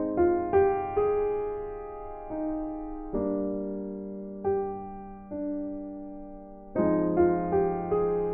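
Soft background piano music: slow chords and single notes, each struck and left to fade.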